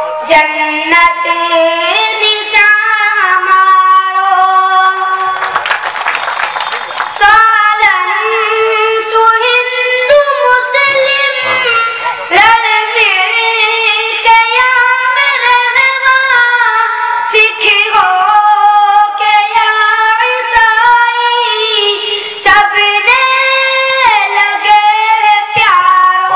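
A boy chanting an Urdu nazm (poem) in a high, melodic voice into a microphone, unaccompanied, with long held and sliding notes.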